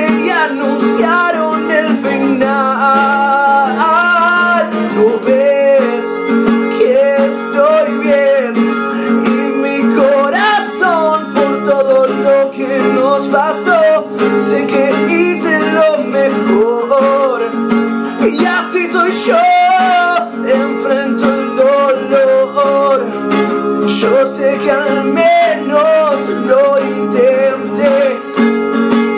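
A song: acoustic guitar accompanying a male voice singing a wavering melody, with no break.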